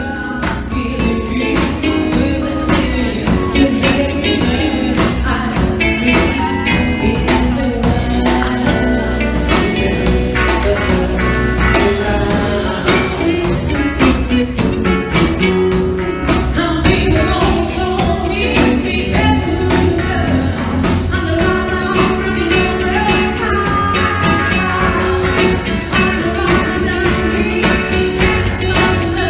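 Rock music with guitar, a steady drum beat and singing.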